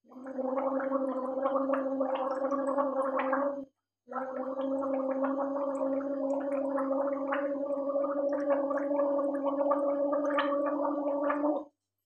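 A woman gargling warm salt water with her head tipped back, sounding a steady, voiced tone through the bubbling water. One gargle lasts nearly four seconds, then after a brief breath a second, longer one runs nearly eight seconds and stops abruptly.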